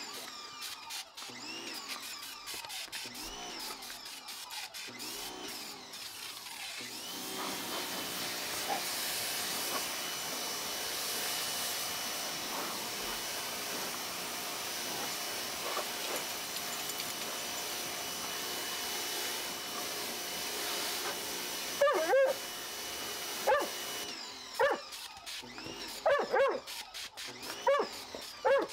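Bauer 2000 PSI electric pressure washer starts about seven seconds in and runs with a steady whine and spray hiss, then shuts off about seventeen seconds later. Near the end, a dog barks repeatedly.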